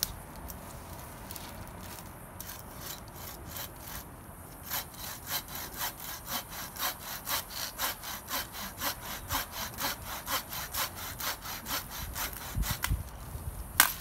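Wooden-framed bucksaw cutting through a branch by hand: a few hesitant strokes, then steady back-and-forth rasping at about three strokes a second. Near the end come a few low thumps and one sharp crack, the loudest sound.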